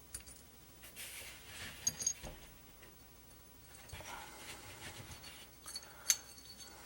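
Faint metallic clinks and taps from the milled metal vise-jaw blocks being handled, with a sharper ringing clink about two seconds in and another about six seconds in.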